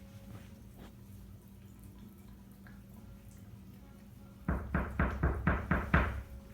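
Knocking on a door: about eight quick, even raps, about four a second, starting near the end after a few seconds of faint background. The knock is the cue that sends the dog to its place.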